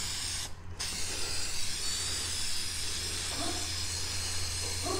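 Aerosol spray-paint can hissing as it sprays, with a short break about half a second in, then a steady spray.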